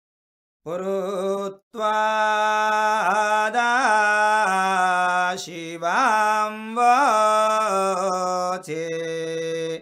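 A voice singing Sama Veda chant (Sama gana) in long held notes with gliding, wavering turns of pitch. It begins just under a second in, with a short break soon after.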